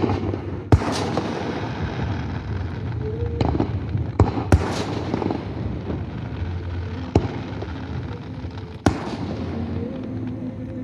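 Fireworks display: aerial shells bursting, about seven sharp bangs spread unevenly over an unbroken rumble and crackle of further bursts.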